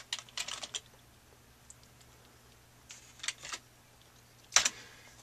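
Computer keyboard typing: a quick run of keystrokes in the first second, a few more clicks about three seconds in, and one sharp, louder click near the end.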